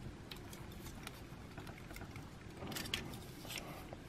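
Faint clicks and light rattles of hard plastic figure parts being handled and fitted together, with a small cluster of clicks about three seconds in.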